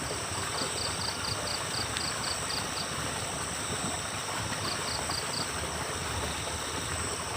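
Steady outdoor background hiss with a faint high chirp repeating about four times a second, in one run early on and a shorter one about two-thirds of the way through.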